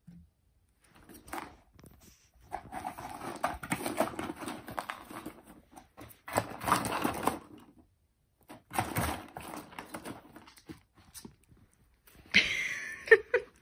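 Pomeranian rummaging in a cardboard box of chew sticks and shredded paper, making three bouts of rustling and scraping with a few light knocks between. Near the end comes one short, louder sound with a pitch to it.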